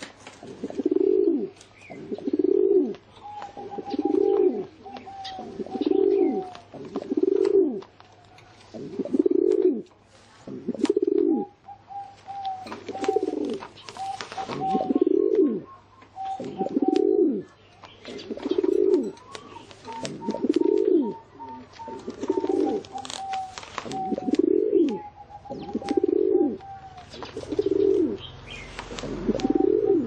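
Rock pigeon cooing over and over, a low, rounded coo about once a second.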